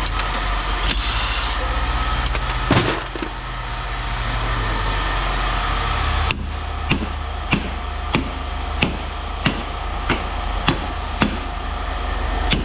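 Evenly spaced hammer-like knocks, about one and a half a second, begin about six seconds in, with a single louder knock near three seconds in, all over a steady low engine-like hum.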